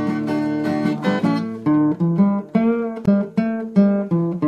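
Acoustic guitar strumming chords in a steady rhythm, the chord changing every second or so: an instrumental stretch of a song.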